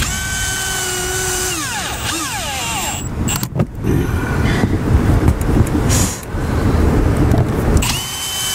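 Cordless drill driving pan-head screws into a metal roof panel seam: the motor whines at a steady pitch, then winds down in pitch as it slows and the screw seats. After a few seconds of rough low noise, the drill starts again near the end.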